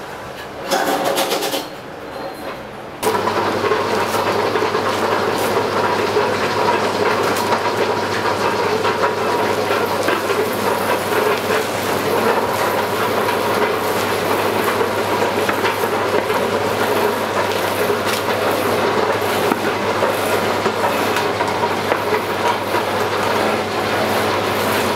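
A machine starts up suddenly about three seconds in and runs steadily, with a constant low hum under a dense mechanical noise.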